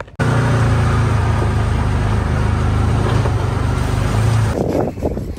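Side-by-side UTV engine running steadily as it drives, heard from inside the cab. The sound cuts off abruptly near the end.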